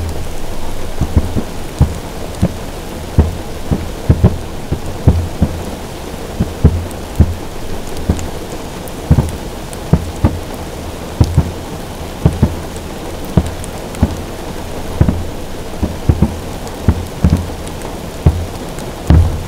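Aerial firework shells bursting in quick succession, heard as many short, deep booms at about one or two a second, over the steady hiss of rain falling on a car roof.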